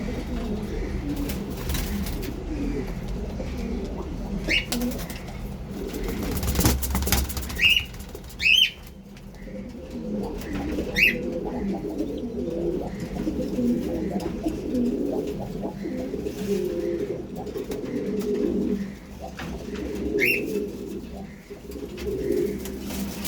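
Pigeons cooing continuously in overlapping low murmurs. A handful of short, high, rising chirps sound over them.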